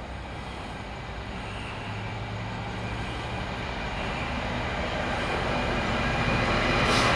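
EWS Class 66 diesel locomotive approaching, its EMD two-stroke V12 engine giving a steady low hum that grows louder as it nears.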